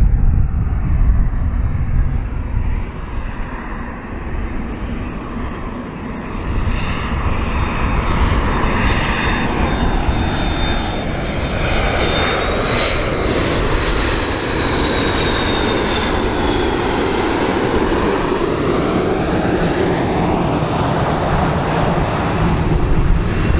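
McDonnell Douglas MD-82 airliner's two rear-mounted Pratt & Whitney JT8D turbofans on landing approach, a steady loud jet noise. Over it runs a high whine that rises slightly and then drops after the middle as the jet flies past, the noise sweeping in a swishing phasing as it passes.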